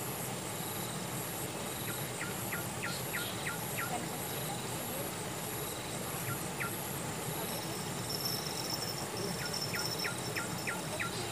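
Insects calling steadily, one with a high pulsing call about twice a second that gives way to a buzzy call about eight seconds in. A bird gives short runs of quick downward-sliding whistled notes several times, the longest run of about six notes near the end.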